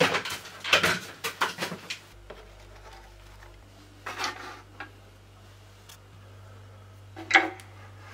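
Workshop handling noise: a quick run of clattering knocks, then a short rustling thud as a coiled bundle of cord lands in a slatted pine drawer about four seconds in, and one sharp knock near the end.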